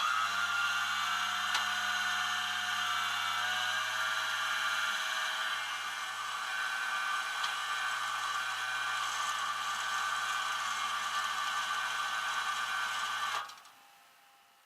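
An electric motor whirring. It rises briefly in pitch as it spins up, runs steadily for about thirteen seconds, then stops abruptly.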